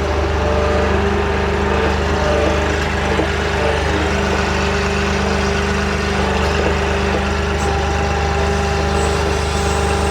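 An engine running steadily at a constant speed, without revving.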